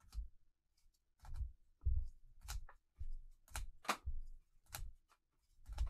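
Rigid plastic card holders being shuffled in gloved hands: a string of short clacks and rustles as each cased card is slid to the front of the stack.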